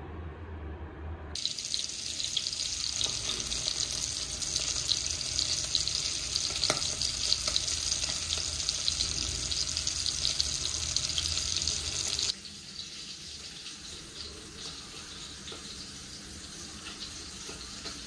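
Water running from a tap into a sink, a steady rush that starts suddenly about a second in and drops abruptly to a quieter rush about twelve seconds in.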